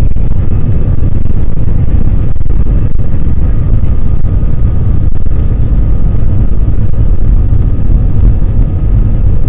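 Airbus A320 cabin noise during takeoff: the jet engines at high thrust over a loud, steady, heavy low rumble, with a faint steady whine above it.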